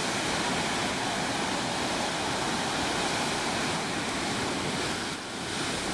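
Ocean surf breaking and washing up a sandy beach: a steady rush of water that dips briefly near the end.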